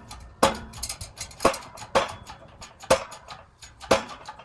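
Sharp metallic clicks and pops, about two a second, as a press drives a new front wheel bearing into a steering knuckle. The bearing is popping a little but still going in easily.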